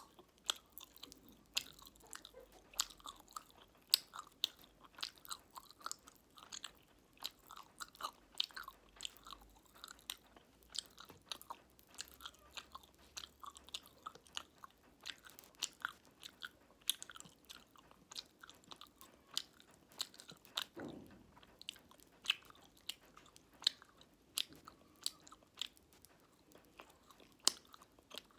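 Close-miked chewing of fruit jelly with popping candy: wet mouth sounds broken by many sharp, irregular clicks and crackles.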